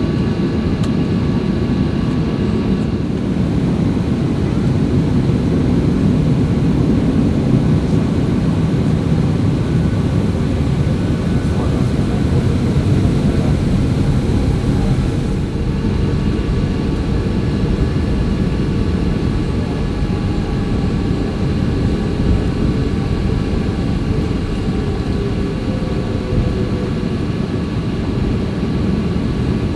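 Boeing 737-800's CFM56 jet engines running at high power, heard from inside the cabin as a steady rumbling rush with faint steady whining tones. The upper hiss eases a little about fifteen seconds in.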